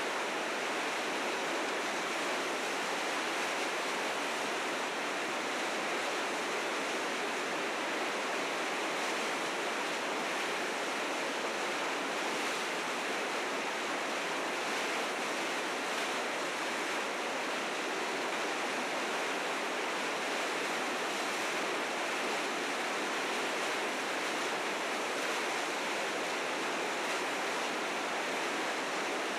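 River rapids rushing in a steady, unbroken roar of white water, swollen with spring snowmelt.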